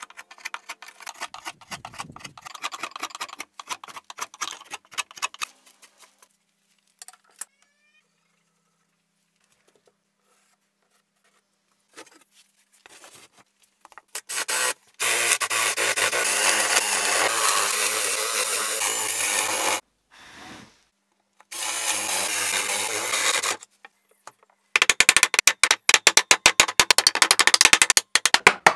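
A wood chisel scraping and paring across the shield's wooden planks in quick strokes, then several seconds of near silence. An electric drill with a spade bit then bores into the wood in a long run and a shorter one. Near the end comes a fast run of sharp clicks.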